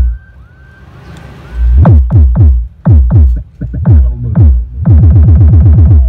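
Bass test music played loud through a 15-inch, 1000-watt Live subwoofer driven by a Joson Jupiter-Max amplifier: deep kick hits that drop in pitch. The hits stop for a quieter stretch with a few short chirps, come back about two seconds in, and run into a fast roll of about eight hits a second in the last second.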